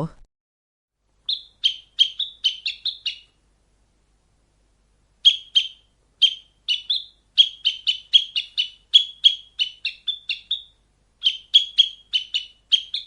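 Sparrow chirping: three bouts of quick, short, high chirps, several a second, with brief pauses between the bouts.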